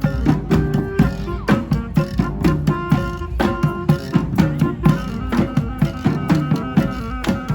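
Live street band playing an instrumental tune: horns carrying sustained notes and a bass line over drums keeping a steady beat.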